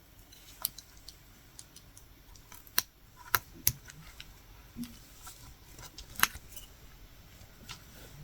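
Irregular small, sharp clicks and taps, a handful louder than the rest, from a metal latch hook tool catching and pulling yarn knots through the rug canvas.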